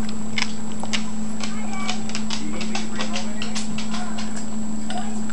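Small dog eating dry kibble from a stainless-steel bowl: quick, irregular crunches and clicks, over a steady low hum.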